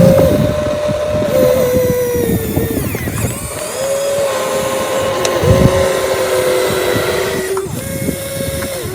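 Electric motor whine of a radio-controlled hydraulic excavator as it is worked, holding a steady pitch, then stepping up or down to a new pitch every second or two.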